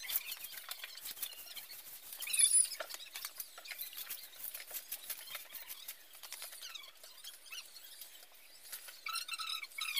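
Broom strokes swishing and scratching across wet wooden floorboards. Short high squeaks or chirps break in, the loudest about two and a half seconds in, with more near the end.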